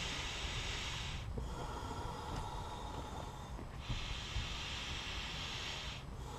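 Air blown by mouth through the inflation tube into the inflatable sponson of a Nautiraid Grand Narak 550 folding kayak, with the sponson being filled as hard as possible. One long hissing blow ends about a second in, a duller breath is drawn in, and a second long blow runs from about four to six seconds.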